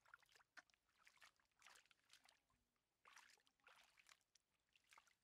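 Hands splashing and squelching in shallow muddy water while groping for fish: an irregular run of short wet slaps and splashes.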